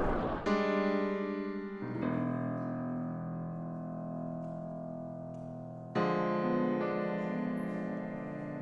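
Slow piano music: chords struck and left to ring, with fresh chords about half a second in, near two seconds, and about six seconds in, each fading slowly. The tail of a noisy rush dies away at the very start.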